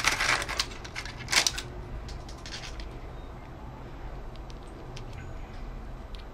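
Parchment paper crinkling and a fork scraping on baked shellfish shell as one piece is pried out of the lined glass dish, loudest about a second and a half in. After that only a few faint clicks over a low hum.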